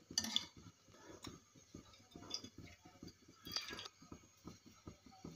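Faint, scattered clicks and light taps, with a slightly louder short clatter twice.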